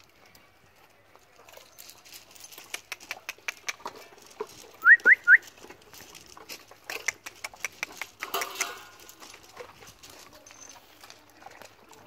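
A pack of dogs eating from metal bowls on gravel: scattered clicks and clinks of muzzles and paws against the bowls and stones. About five seconds in come three quick rising whistle-like chirps, the loudest sound, and a little after eight seconds a brief scraping rush.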